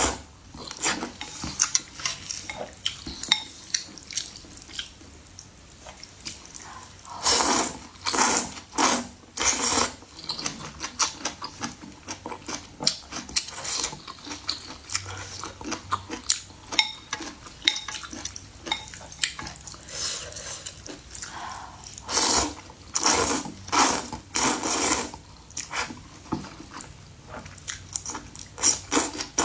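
Close-miked mukbang eating sounds: a person chewing and smacking on soup, porridge or noodles, with frequent wet clicks and a few louder bursts of slurping-like noise about seven to ten seconds in and again about twenty-two to twenty-five seconds in.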